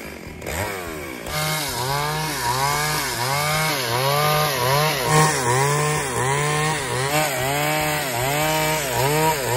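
Two-stroke petrol chainsaw cutting into a log, its engine pitch dipping and recovering in a regular rhythm about one and a half times a second as the bar is worked through the wood.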